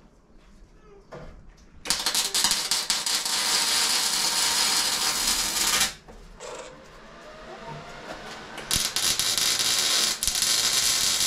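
Electric arc welding, the arc crackling and sizzling steadily in two runs: one about two seconds in lasting about four seconds, and another starting about nine seconds in. The tubing hoop that will hold the steering is being tacked down to the buggy's floor pan.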